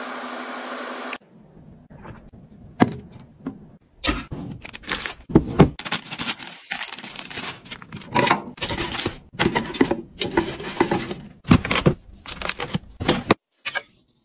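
A hand handling and fitting a white plastic storage box against a wall, making a dense run of sharp plastic clicks, knocks and rattles. A short steady rushing sound stops about a second in.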